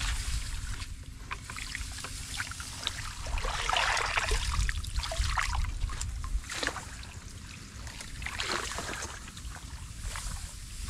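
Shallow muddy paddy water sloshing and splashing as hands and a woven bamboo basket scoop are worked through it, in irregular bursts that are loudest about four seconds in, over a steady low rumble.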